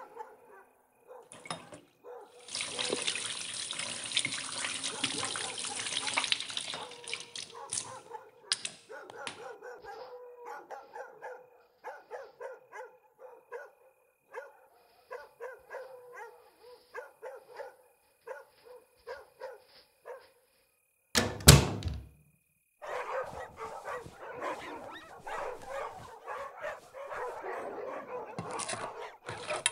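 A tap running into a bathroom sink for about five seconds, then a long string of short, separate sounds. Past two-thirds of the way through comes one sudden loud bang, a moment of silence, and then a rough, continuous noise.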